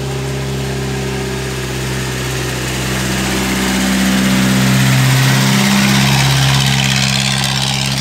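Motorcycle engine running nearby, rising in pitch and getting louder about halfway through as it revs, then settling back a little.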